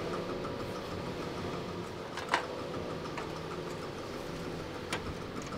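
Steady low mechanical hum of workshop background, with a sharp metallic click a little over two seconds in and a lighter click near the end, from a spanner and small fittings handled against a rusty steel dashboard panel.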